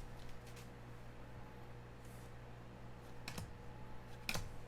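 A few faint, sharp clicks and snaps of football trading cards being flipped through by hand, with a low steady hum underneath.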